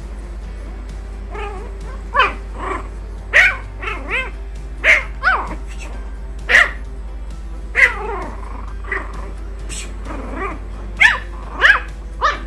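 A Shih Tzu puppy yapping: a dozen or so short, high yaps spaced irregularly, each dropping in pitch.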